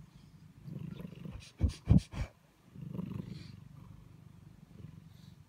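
Domestic cat purring close to the microphone, a steady low rumble that breaks off briefly about two and a half seconds in. A few sharp knocks or bumps come just before that break, about two seconds in.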